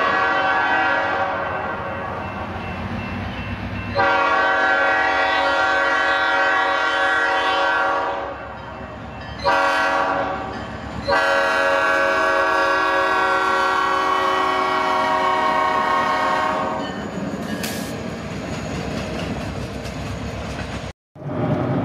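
An EMD SD40-2 diesel locomotive's multi-note air horn sounds the grade-crossing signal: the tail of one long blast, then a long, a short and a final long blast. After the horn stops, the locomotive and its car rumble and clatter across the road crossing.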